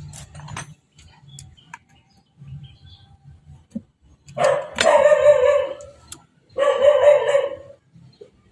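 Two loud, long animal calls, one after the other about halfway through, each holding a steady pitch with strong overtones.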